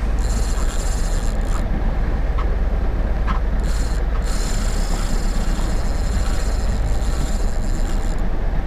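Spinning reel being cranked in spells, its gears whirring, over the steady low rumble of the boat's engine.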